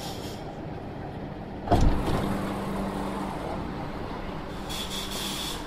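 Inside a Shenzhen Metro Longhua Line train built by CSR Puzhen with ABB IGBT-VVVF traction: a steady cabin rumble, a sudden loud thump about two seconds in, then a brief steady hum. A high tone sounds near the end.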